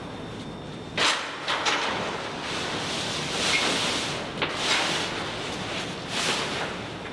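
Large printed sheet rustling as it is lifted and dragged up a stepladder, in a series of swishes, with one sharp knock about four and a half seconds in.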